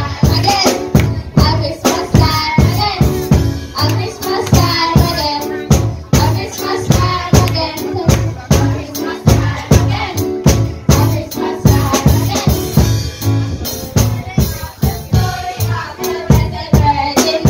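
Upbeat song with a fast, steady beat and children's voices singing the melody.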